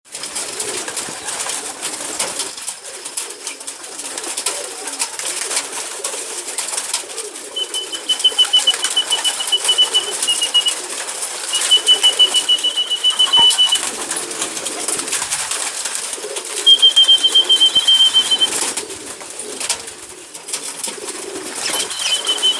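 Ducks and pigeons feeding together: a busy flock hubbub with pigeon cooing, and four times a high, rapidly pulsing trill lasting two to three seconds each.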